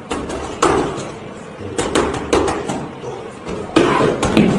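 A child's punches landing on boxing pads held by an adult: a run of sharp slaps at an uneven pace, some in quick pairs.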